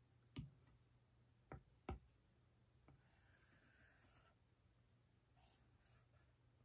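Near silence, broken by three faint taps of a stylus tip on the iPad's glass screen in the first two seconds, and a soft scratch of the stylus dragging across the screen about three seconds in as a line is drawn.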